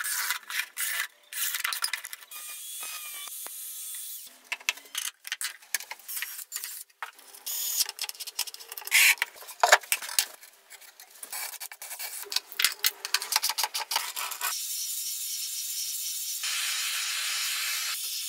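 Rapid clicks, knocks and rubbing of hand tools and workpieces being handled, cut together and sped up. About fifteen seconds in, an aerosol spray can hisses steadily for about four seconds.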